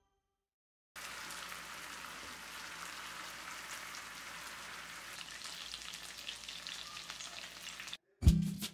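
Yogurt-marinated chicken drumsticks shallow-frying in oil in a pan: a steady sizzle that starts about a second in and stops shortly before the end. Music cuts in right at the end.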